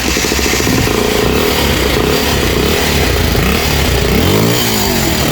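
Dirt bike engine running loudly, revved up and back down near the end. The owner suspects an exhaust leak is making it loud.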